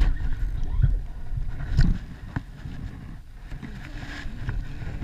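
Wind buffeting the camera microphone on an open kayak, loudest in the first two seconds and then easing off. A few sharp clicks and knocks from handling the gear sound within the first two and a half seconds.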